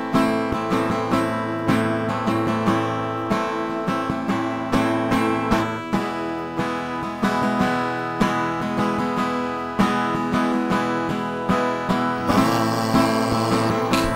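Music: a guitar-led intro of plucked and strummed guitar notes in a steady rhythm over sustained tones. About twelve seconds in, a bright hissing layer joins.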